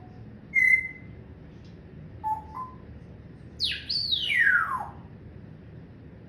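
Pet parrot whistling: a short high note about half a second in, two brief lower notes a little after two seconds, then two loud falling whistles near the four-second mark.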